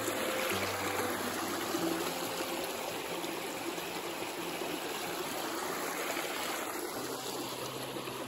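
Shallow creek running over rocks and gravel: a steady rush and trickle of water.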